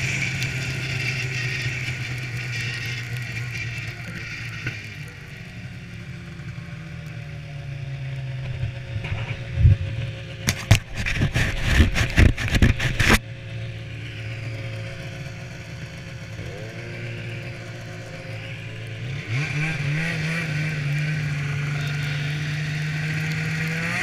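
Snowmobile engine easing off to a low run. About ten seconds in, a few seconds of loud knocking and rubbing right on the microphone cover it, as the camera is handled. The engine then revs up twice and settles into a steady run at speed.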